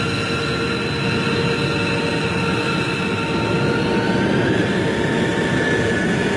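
Jet aircraft engines running: a steady roar with several high whining tones, one of which rises slightly in pitch about four seconds in.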